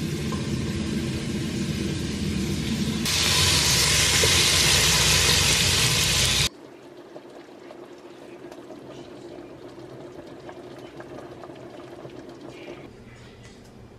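Chicken pieces and chopped onion and celery sizzling in a hot pot, a loud steady hiss that steps louder about three seconds in. It cuts off abruptly about six and a half seconds in to a much quieter low hiss with a few faint ticks, the pot of broth simmering.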